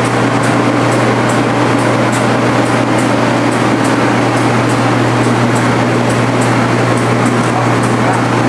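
Large electric machinery running steadily: a loud, even noise over a low electric hum, with a light ticking at about three ticks a second.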